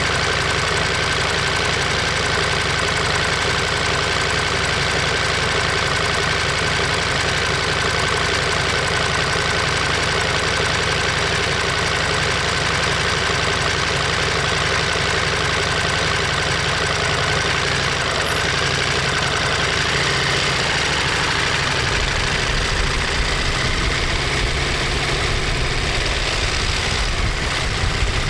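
Ducati Monster 1200S's 1198 cc L-twin engine and exhaust running steadily. About three-quarters of the way through, the deep part of the sound changes and stays changed.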